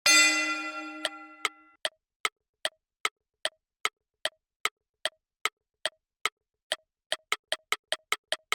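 A bright chime rings once and fades, then a clock-like ticking sound effect runs at about two and a half ticks a second and quickens near the end, like a countdown timer.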